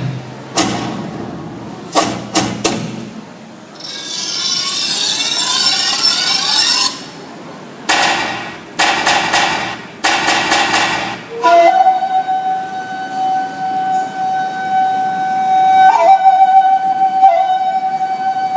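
Electronic soundtrack of a projection-mapping dance show played over a hall's speakers: sharp hits and whooshes, a sweeping hiss, a run of rhythmic stabs, then in the last third one long held electronic tone.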